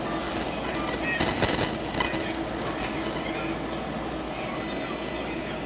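SEPTA Market-Frankford Line M-4 subway car running along the rails, heard from inside the lead car: steady rolling noise with a thin, high wheel squeal, and a brief clatter about a second in.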